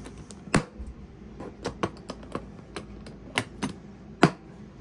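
Plastic lid and latches of a Ridgid Pro Gear rolling tool box clicking as the lid is pressed shut and latched. It is a series of light, irregular clicks, with the loudest snap near the end as the front latch closes.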